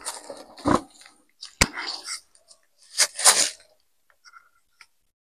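A person crawling into a narrow gap under a boulder: scuffs and rustles of hands, knees and clothing on rock, soil and dry leaves, in a few irregular noisy bursts, with one sharp click about one and a half seconds in.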